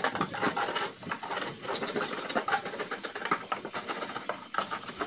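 Wet concrete being poked and pushed down into narrow plywood formwork by hand to compact it, making a rapid, irregular tapping and clicking.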